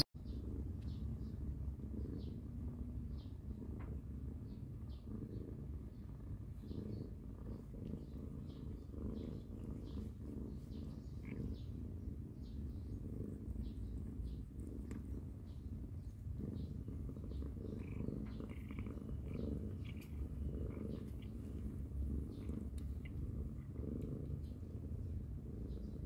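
Domestic tabby cat purring steadily with her kittens, a continuous low rumble, with faint scattered soft clicks above it.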